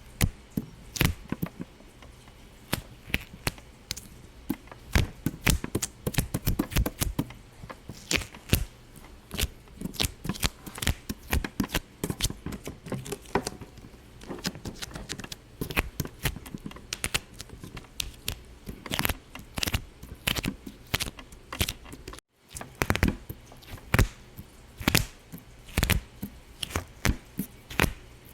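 A steady run of sharp, irregular pops and clicks, several a second, cutting out for a split second about two-thirds of the way through.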